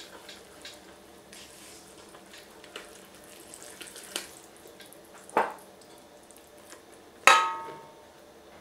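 Red silicone spatula stirring and scraping a wet flour-and-milk batter in a stainless steel pot, soft scraping with small clicks. There is a sharper knock about five seconds in, and near the end a louder clink against the pot that rings briefly.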